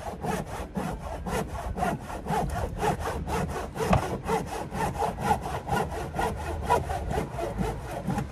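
Hand saw cutting through wood with quick, even back-and-forth strokes, about four a second.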